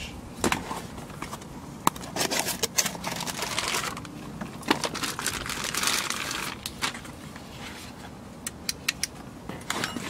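Clear plastic packaging bag crinkling and rustling as it is handled, in two longer spells, with a few sharp clicks and taps in between.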